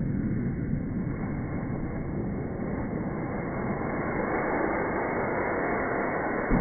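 Masclet firecracker's fuse burning and spraying sparks: a steady hissing that fills out and grows stronger about halfway through. It is slowed down with the slow-motion footage, so the hiss sounds low, like a rumble.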